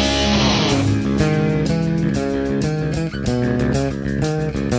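Background music: an electric guitar instrumental over bass guitar. A full, sustained chord dies away about a second in, giving way to a quick run of separate picked notes.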